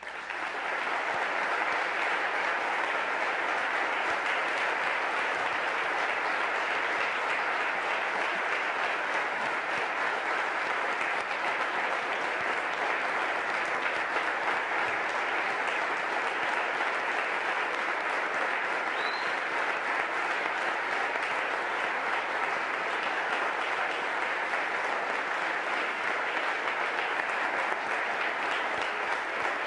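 Large audience applauding, a steady unbroken ovation.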